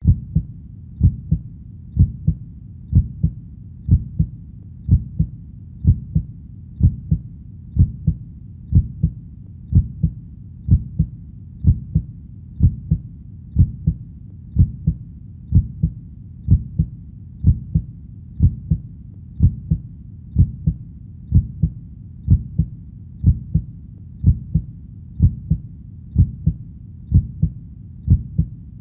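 A heartbeat: steady lub-dub double thumps, low and dull, about once a second (roughly 60 beats a minute).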